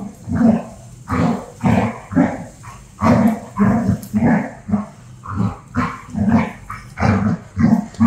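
A dog barking and growling in short bursts, about two a second, as it plays rough with a toy.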